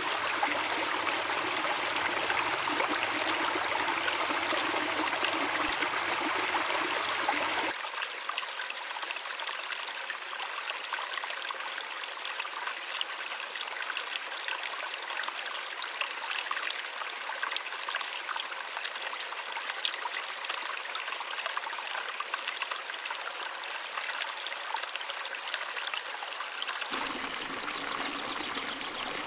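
Waterfall and stream water running steadily. About eight seconds in it turns to a thinner, higher trickle of the stream with many small ticks of water, and near the end it becomes a fuller rush again.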